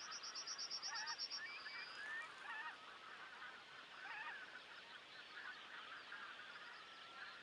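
A large flock of geese calling, many overlapping honks at a fairly low level. In the first second and a half a high, rapid trill of about ten notes sounds over them.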